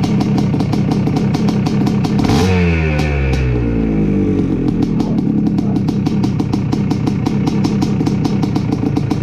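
1982 Yamaha IT250 two-stroke single-cylinder dirt bike engine idling with its newly fitted Boyesen Power Reeds. About two and a half seconds in, the throttle is blipped once, and the revs fall back over about two seconds before it settles into idle again.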